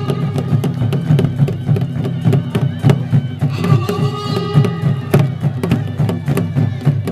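Traditional music: fast, steady drumming with sharp clicking strokes, and a high held melody note that comes in for about a second and a half about three and a half seconds in.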